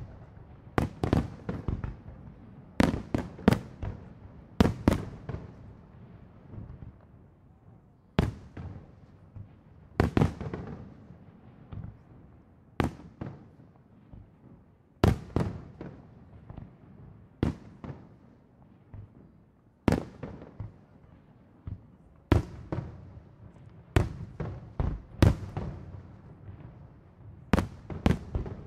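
Aerial fireworks shells bursting one after another, a sharp boom every second or two, each trailing off in an echo.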